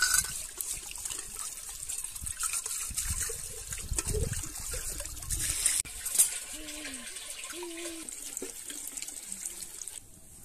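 Water pouring steadily from a pipe spout, running over hands and then splashing into a metal kettle as it fills; the water sound drops away near the end.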